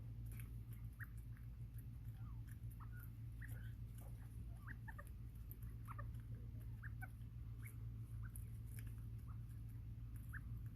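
Bobwhite quail giving soft, short chirps and peeps, scattered irregularly, over a steady low hum.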